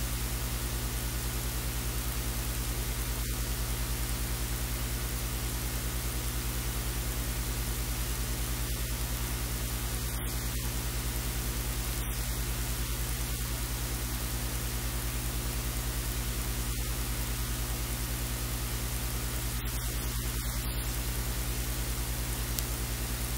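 A steady hiss with a low electrical hum under it, unchanging throughout; no other sound stands out.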